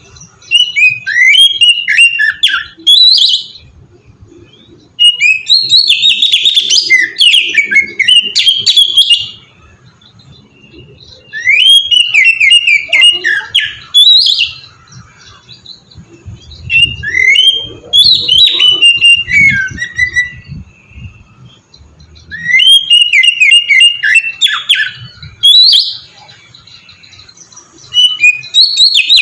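Oriental magpie-robin (kacer) singing loud, varied whistled phrases in bouts of a few seconds, with short pauses between them.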